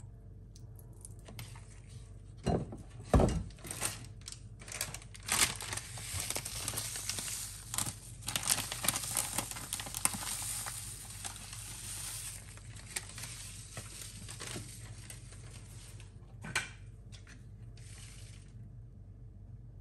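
Crinkling and rustling as seasoning is handled and sprinkled over a raw chicken, with many small irregular clicks. Two sharp knocks about two and a half and three seconds in are the loudest sounds.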